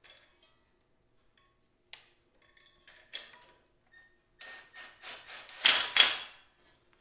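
Scattered small metallic clicks and taps from a wrench and fittings as the kill-switch wire is undone on a small mini bike engine, with a louder scraping rattle about five and a half seconds in.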